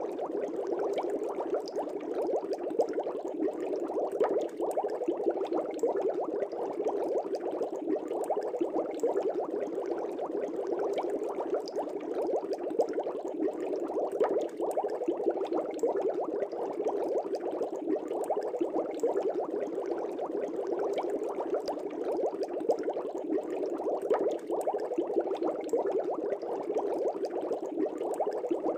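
Aquarium water bubbling steadily: a dense, even stream of small bubbles with fine popping and crackling, unchanging throughout.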